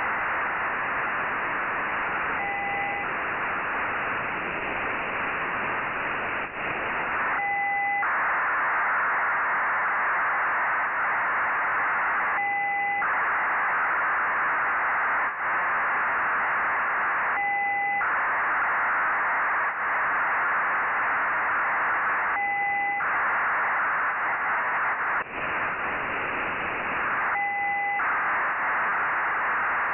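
Nayif-1 (EO-88) cubesat's 2 m telemetry downlink received on a software-defined radio in narrow FM: a steady radio hiss, broken every five seconds by a brief burst with two steady tones, one low and one high.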